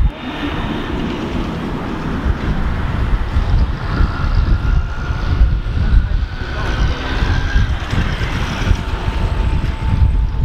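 Gusty low rumble of wind buffeting the microphone, over the indistinct murmur of a standing crowd.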